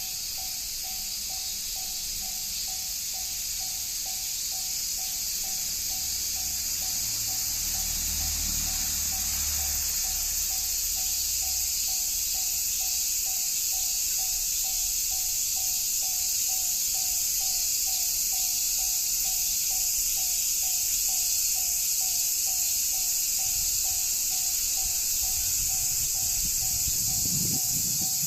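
Japanese railway level-crossing warning bell ringing in steady, evenly repeated electronic tones, the signal that a train is approaching. A low rumble builds near the end as the train nears the crossing.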